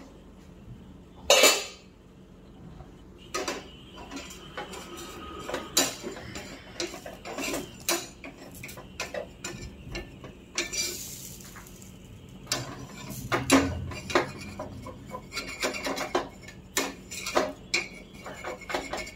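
Metal utensils clinking and knocking against an iron appam pan and the stove as batter is poured and worked with a steel spatula: a scatter of sharp clinks, the loudest about a second and a half in. A short hiss comes about ten seconds in.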